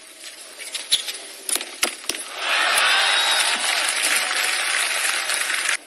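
A few sharp tennis-ball strikes off rackets in a rally, then loud crowd applause and cheering as the point ends, cut off suddenly near the end.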